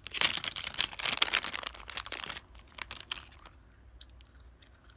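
Paper journaling materials crinkling and rustling as they are handled, a dense crackle for about two and a half seconds, then a few scattered light ticks and taps.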